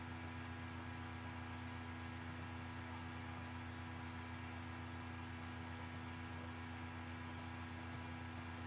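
Faint steady electrical hum with a light hiss underneath, unchanging throughout.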